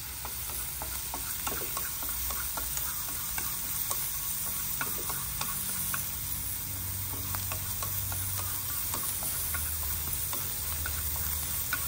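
Minced lemongrass and chili sizzling as they stir-fry in an aluminium frying pan, stirred with chopsticks that tick and scrape against the pan. The lemongrass is being fried until golden and fragrant.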